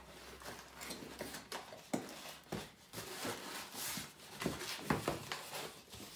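Cardboard box being closed and handled: flaps folded and pressed shut with rustling and scraping, and several light knocks as the box is tapped and shifted on the table.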